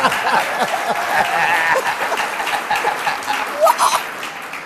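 Studio audience laughing and clapping, dying away toward the end.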